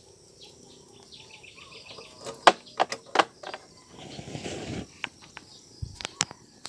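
Insects chirping in a faint pulsing trill behind a handful of sharp clicks and knocks about two to three seconds in, followed by a short rustling burst about four seconds in.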